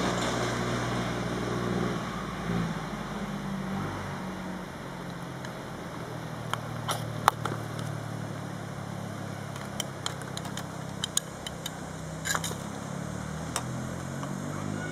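Steady low hum of an engine running, its pitch shifting a little now and then, with a few sharp clicks through the middle.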